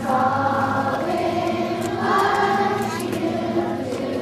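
A choir singing in long held notes.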